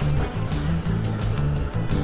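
Background music with bass notes and a steady drum beat.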